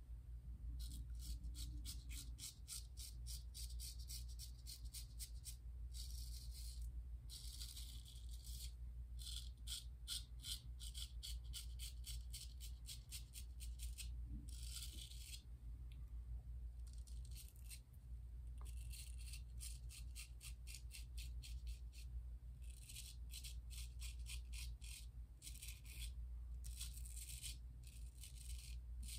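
Gold Dollar 208 straight razor cutting whiskers through lather on the neck and jaw: a crackling rasp of rapid fine ticks in short runs of strokes, with brief pauses between them. A steady low hum lies underneath.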